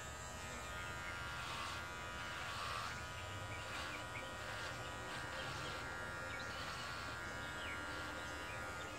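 Electric hair clippers running with a steady buzz while shaving hair from the side of the head.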